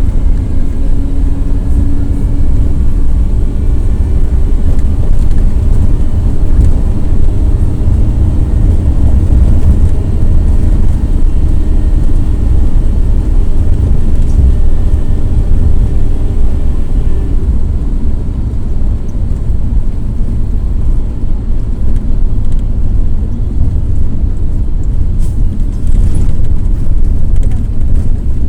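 Cummins ISF 3.8 four-cylinder turbodiesel of a Volare W9C minibus pulling on the highway, heard from inside the bus as a steady deep rumble. Whining tones from the differential sit over the engine and fade about two-thirds of the way through.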